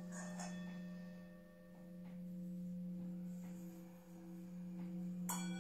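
Quiet ambient background music: a single low drone note held steadily, with fainter higher overtones, like the hum of a singing bowl.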